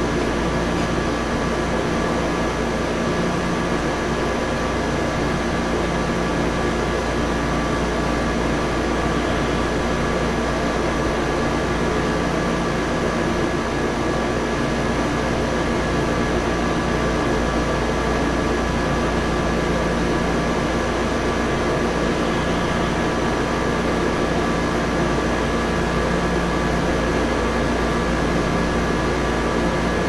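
A steady mechanical hum: an even rumble with several held tones above it, unchanging in level.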